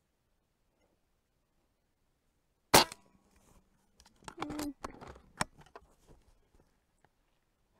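A single shot from a Walther Reign .25-calibre PCP air rifle, a sharp crack with a short ring about three seconds in, followed a second or so later by a run of quieter clicks and knocks.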